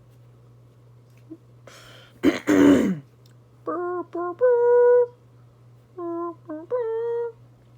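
A person's loud, harsh cough about two seconds in. It is followed by a voice humming a short three-note phrase twice, two short low notes and then a longer, higher held note.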